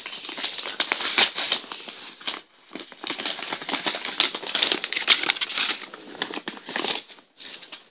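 Paper manila envelope and its packing material crinkling and rustling as hands rummage through them: a dense run of small crackles with a short pause about two and a half seconds in.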